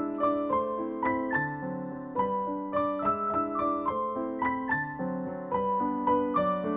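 Background piano music: a melody of single and overlapping notes, each struck and left to ring.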